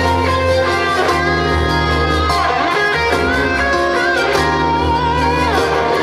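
Instrumental break of a pop song played through stage loudspeakers: a lead melody that slides and bends in pitch over bass and a steady beat.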